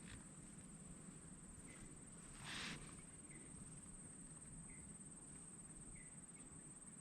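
Near silence: faint swamp ambience, with a steady high-pitched tone, small chirps every second or so, and one brief rustle about two and a half seconds in.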